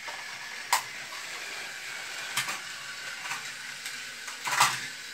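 Steady whir of small battery-powered Thomas toy trains running on plastic track, with about four sharp plastic clicks as toy train cars are handled and coupled, the loudest near the end.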